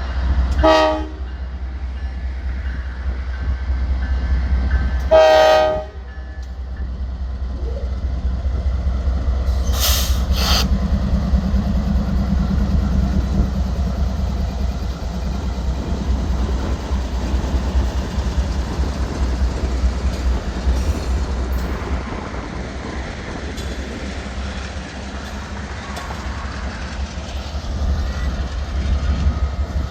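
A train rolling past with a steady low rumble. Its locomotive horn sounds twice, a short blast just after the start and a longer one about five seconds in, and two sharp clicks come about ten seconds in.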